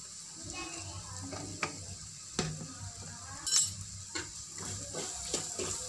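A metal spoon stirring and scraping spice masala around a metal kadai, with a steady soft sizzle of the onion-tomato base frying. There are several sharp scrapes of the spoon against the pan, the loudest about three and a half seconds in.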